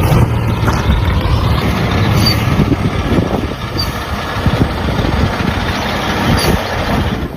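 Truck engine running with a steady low rumble, which starts and cuts off abruptly.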